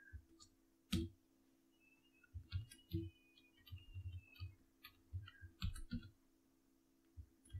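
Computer keyboard keystrokes: about a dozen soft, irregular taps, the sharpest about a second in, over a faint steady low hum.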